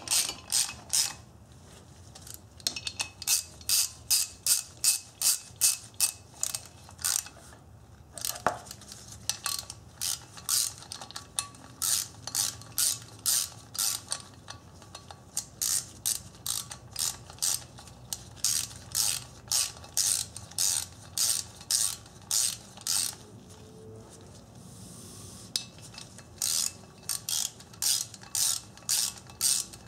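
Hand ratchet clicking in even runs of about three clicks a second, with a few short pauses, as the rotor-to-hub bolts are snugged down.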